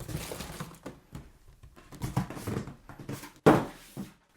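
Cardboard box and packaging being handled: rustling and scraping with several knocks, and a sharp thump about three and a half seconds in.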